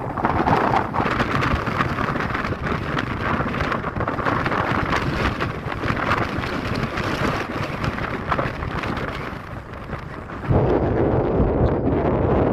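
Strong wind blowing and buffeting the microphone, a steady rushing noise that grows suddenly louder and deeper with a gust about ten seconds in.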